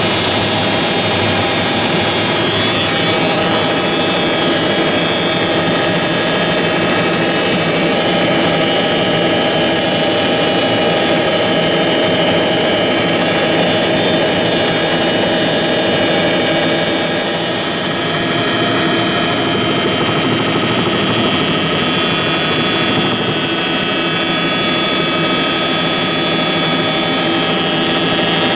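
Tour helicopter's turbine engine and rotor heard from inside the cabin: a steady, loud whine of many held tones over the rotor's noise. A thin high tone comes in and slowly rises over the second half.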